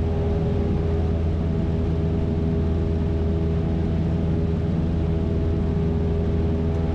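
Single-engine light aircraft's piston engine and propeller running at full takeoff power as the aircraft lifts off and climbs away, heard from inside the cockpit. A steady drone that holds the same pitch throughout.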